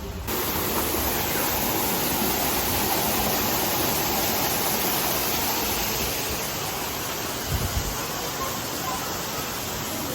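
Steady rushing of falling water from an aquarium water feature, starting abruptly just after the beginning, with a few dull low thumps about seven and a half seconds in.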